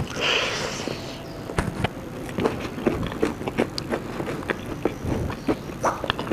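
A person eating close to the microphone: a crunchy burst at the start, then irregular chewing clicks and crunches.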